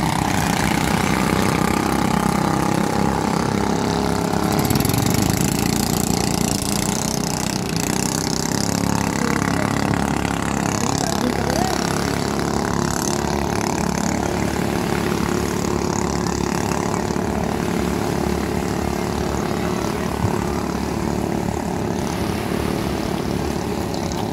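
Engines of racing motorized outrigger boats running flat out, a steady drone that fades a little as the boats pull away from the shore.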